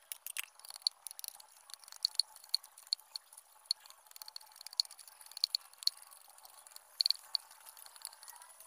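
Machete blade chopping and shaving an upright bamboo pole: a string of sharp, irregular strikes, one or two a second with quick clusters, many with a brief high ring.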